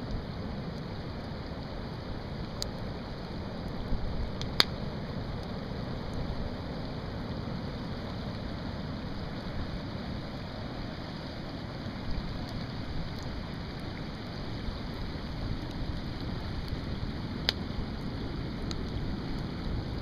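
Ocean surf breaking on a sandy beach: a steady low rumble and hiss, with a few sharp clicks, the loudest about four and a half seconds in and another near the end.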